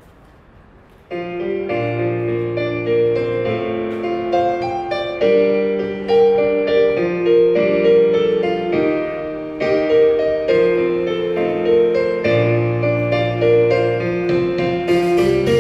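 Piano introduction to a song, starting about a second in after a brief lull: sustained chords and a slow melody line.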